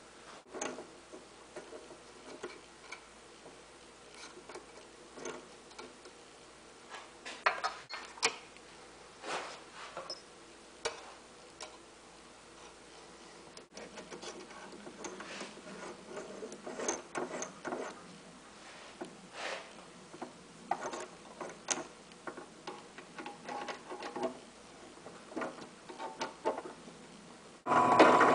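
Scattered small metal clicks and taps as a drill bit is changed in a drill press chuck after drilling a pilot hole. Near the end the drill press motor starts suddenly and runs steadily.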